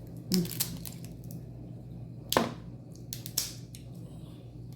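Crab leg shells cracking and snapping as they are bitten open: a series of sharp cracks, the loudest about halfway through.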